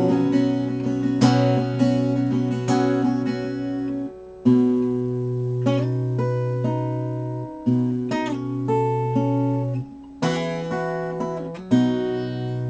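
Acoustic guitar playing the closing instrumental bars of the song. Chords are struck every second or two and left to ring, with a brief drop-out twice, and the last chord is held at the end.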